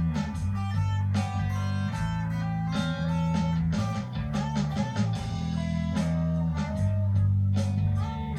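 Electric guitar playing a lead line with bent notes over a slow psychedelic blues-rock backing track in E Dorian at about 75 bpm, with bass and drums.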